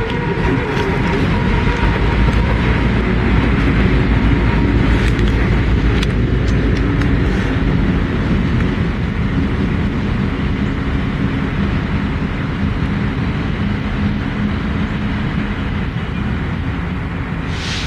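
Diesel locomotive engine running steadily as the unit moves slowly through the yard, a loud low drone with a few sharp clicks about five to six seconds in, easing a little in the second half.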